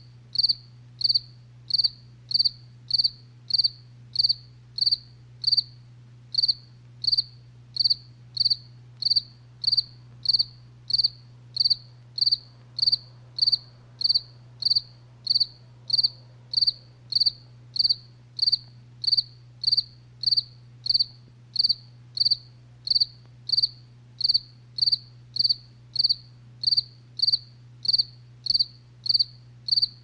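A cricket chirping in an even, unbroken rhythm of about two short, high-pitched chirps a second, over a faint steady low hum.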